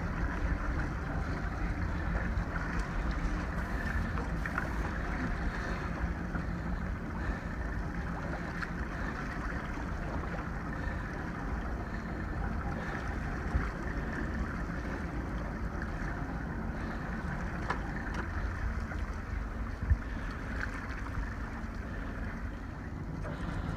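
Steady low rumble with wind and water noise aboard a boat at sea, broken by two brief sharp knocks, the louder one about twenty seconds in.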